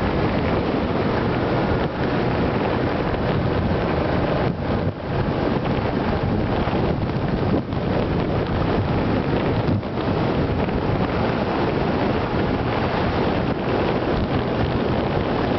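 Steady wind rush buffeting the microphone of a compact camera mounted above a motorcycle's windscreen while riding at road speed, with a few brief dips in the rush.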